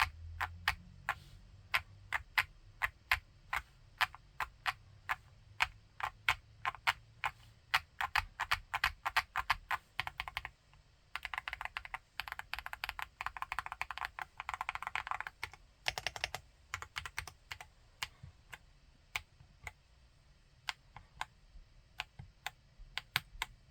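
Typing on an Akko SPR 75 spring-mounted mechanical keyboard with MMD Princess tactile switches. It starts as separate keystrokes about two a second, then speeds up into a fast, continuous run of typing, then slows back to single keystrokes.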